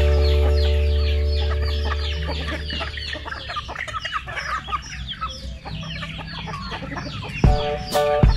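Chickens feeding in a flock: a dense run of quick, falling peeps from chicks mixed with hens clucking. Background music, a held low chord, fades under it at first, and plucked music notes come back near the end.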